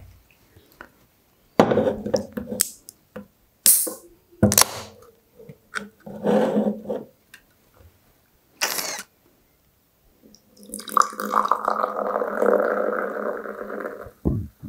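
A sparkling orange soft drink poured from an aluminium can into a glass, pouring and fizzing for about three seconds near the end. Before that come scattered clicks and knocks of the can being handled and opened, with short hissing bursts.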